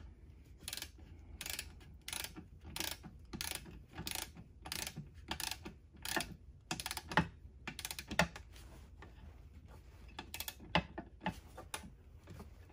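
Ratchet head of a Harbor Freight torque wrench clicking in a run of short back-and-forth strokes, tightening the winch mount nuts to 33 ft-lbs. The clicks come about one or two a second, the two loudest a little past halfway, then thin out toward the end.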